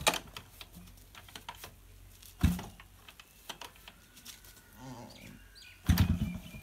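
Yamaha RX100 kick-started three times, each kick a short thump as the 98 cc two-stroke single turns over without firing. It is a hard cold start that will not catch, after the bike stood in rain all night.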